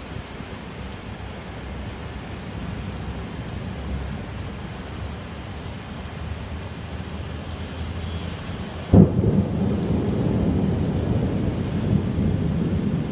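Steady rain with a low rumble of thunder; about nine seconds in a sudden loud thunderclap breaks and rolls on as a heavy low rumble.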